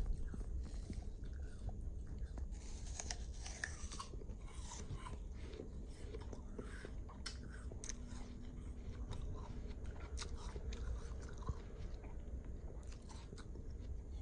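A person chewing bite-sized pieces of crisp raw apple: quiet, irregular crunching as the apple is bitten and munched.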